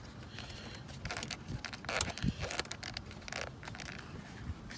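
Scattered light metallic clicks and scrapes of a strut bar's mounting bolt and washer being turned down by hand.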